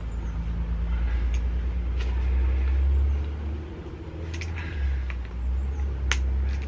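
Low rumble of a vehicle engine that swells to a peak about halfway through and then eases off, with a few sharp clicks of a screwdriver prying a rubber anti-roll-bar bush off the bar.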